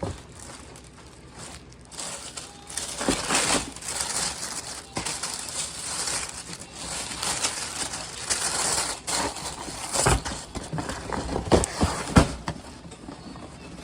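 Cardboard shoe boxes being handled and shifted, with irregular rustling and crinkling and a few sharp knocks, the loudest near the end.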